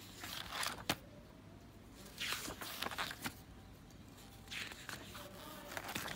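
Paper pages of a spiral-bound sketchbook being turned and handled: several short rustles of paper with a sharp click about a second in.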